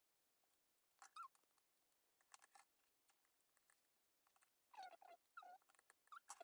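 Faint small clicks, and short squeaks in the second half, from a precision screwdriver turning tiny screws into an iPhone 6 logic board.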